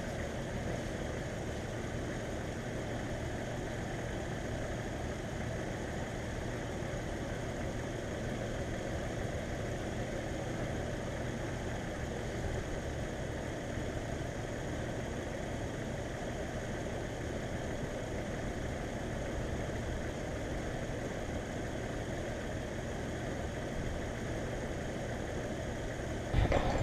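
1997 Jeep Wrangler TJ engine idling steadily just after an oil change, with fresh oil and a new filter in.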